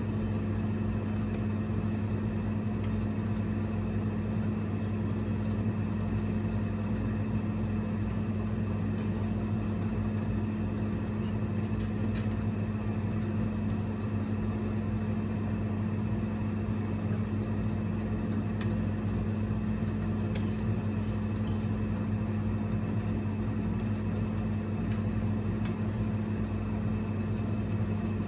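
Steady low electrical hum of a single-burner induction cooktop running, with a few faint high ticks over it.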